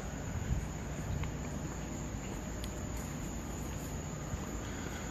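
Night insects, crickets, chirring steadily in one high, even band, over a low rumble.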